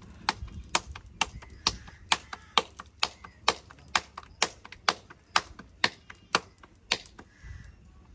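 Flatbread dough slapped between the palms to flatten it by hand, a steady run of sharp slaps about two a second that stops near the end.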